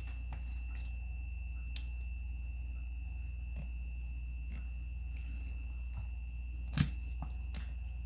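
Quiet indoor room tone: a steady low hum and a faint steady high whine, with a few soft ticks and one sharper click about seven seconds in.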